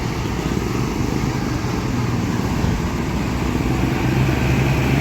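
Tour bus diesel engine running close by, a steady low engine note that grows a little louder toward the end.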